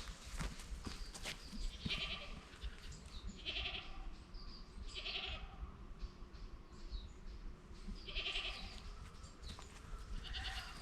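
An animal calling, about five short pitched calls a second or two apart, over a steady low outdoor background.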